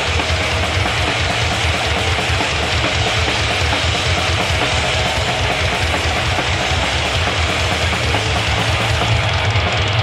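Live grindcore/thrash band playing at full volume: distorted guitars, bass and fast drums in a dense, unbroken wall of sound.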